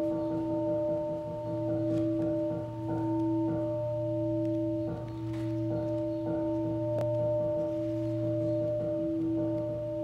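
A single male voice chanting a Buddhist sutra in a steady monotone, the pitch held level, with short breaks for breath every few seconds.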